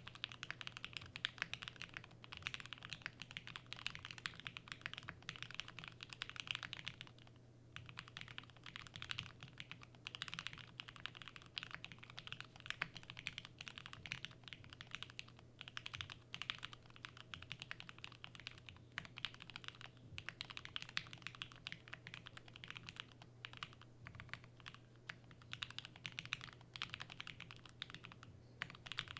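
Fast continuous typing on a 7V custom mechanical keyboard with lubed Matrix Labs FFFF switches, a polycarbonate plate and GMK keycaps: a dense run of keystrokes with brief pauses, the longest about seven seconds in. A faint steady low hum lies underneath.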